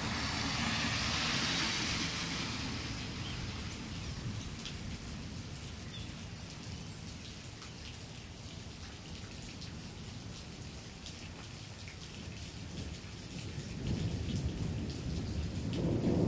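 Steady rain falling, with a low rumble of thunder building near the end.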